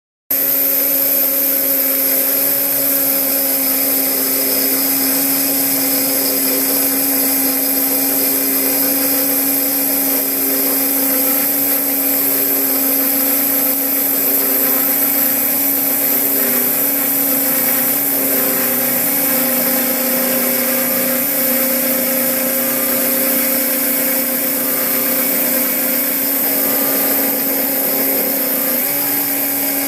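CNC milling machine running and milling aluminium: a steady, loud machine whine with several held tones, starting abruptly just after the start.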